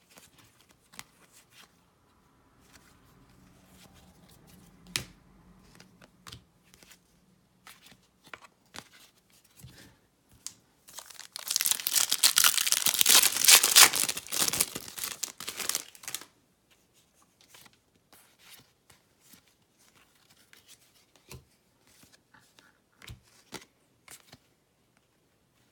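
A baseball card pack's wrapper being torn open and crinkled for about five seconds halfway through, with scattered light ticks and taps before and after.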